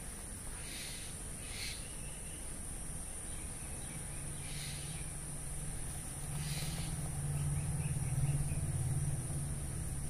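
Common myna chicks giving four short, harsh calls over a steady high-pitched whine. A low hum swells in the second half and becomes the loudest sound.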